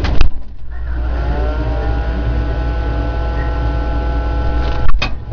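A small electric appliance motor humming steadily. It starts with a thump, its tones rise as it spins up, and it cuts off with a click near the end, its pitch falling as it winds down.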